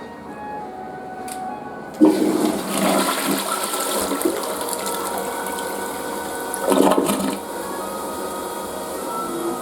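A toilet flushing: a sudden rush of water starts about two seconds in, surges again a little past the middle, then goes on as steady running water.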